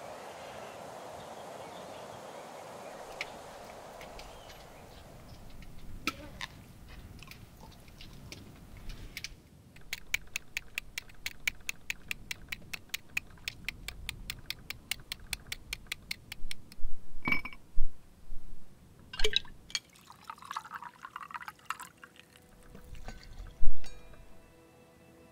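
A soft wind hiss, then a block of clear ice being chipped with an ice pick: sharp taps, about four a second, for several seconds. A few louder knocks and clinks follow, and liquid is poured into a metal mixing tin.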